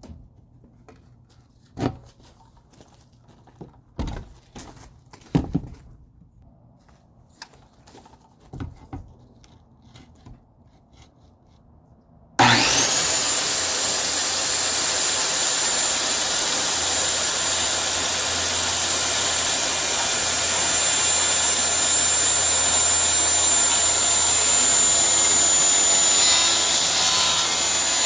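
A few scattered knocks and clatter, then about halfway through a 7-1/4-inch circular saw fitted with a 4-tooth fiber cement blade starts up suddenly and runs steadily with a high whine, cutting fiber cement board at a 45-degree angle.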